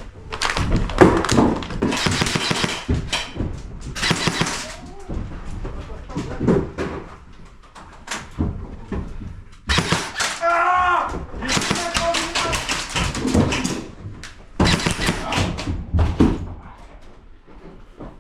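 Airsoft guns fired in repeated bursts of rapid clicks at close range, with thuds and a brief shout about ten seconds in.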